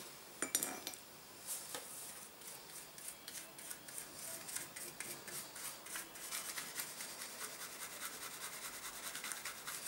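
Paintbrush stroking natural shellac onto a thin embossed gold metal-foil star: a long run of quick, light, scratchy brush strokes, with a couple of small clicks just before they start.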